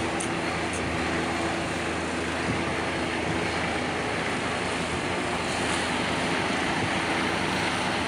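Police helicopter flying low overhead: a steady rotor and engine noise.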